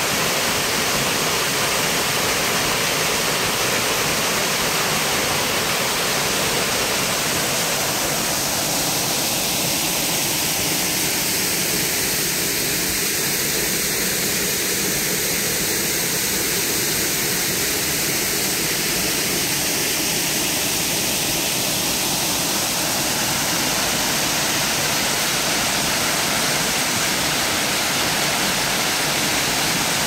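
Waterfall pouring into a pool: a steady, even rush of falling water that thins a little in the middle for a while, then comes back full.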